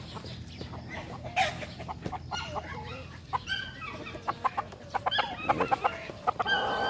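Gamecock roosters clucking, with a rapid run of short clucks about five seconds in and a crow starting near the end.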